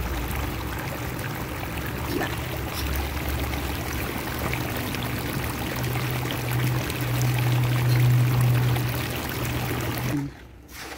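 Sandy backwash water from a pool's sand filter gushing out of the end of a PVC discharge pipe onto grass, with a steady low hum underneath. It cuts off suddenly about ten seconds in.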